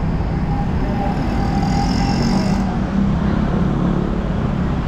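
Street traffic: vehicle engines running steadily with an even road noise, and a faint high whine between about one and two and a half seconds in.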